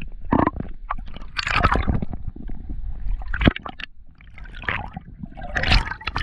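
Seawater sloshing, splashing and gurgling right at the microphone as the camera moves through the sea surface. It comes in irregular bursts, and the camera goes under near the end.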